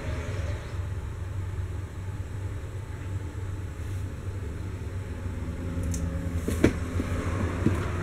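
A steady low rumble, with a few light knocks about two-thirds of the way in.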